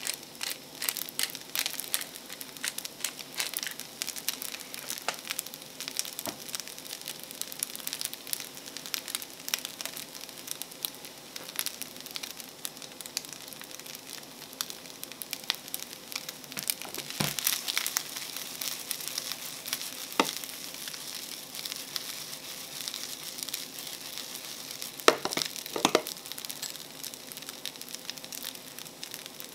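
Egg-and-butter fried rice sizzling and crackling steadily in a frying pan over a gas burner, with a few sharp knocks past the middle and two more near the end.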